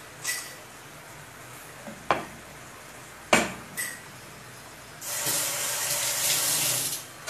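A few short, sharp clicks, then a water tap running steadily for about two seconds near the end.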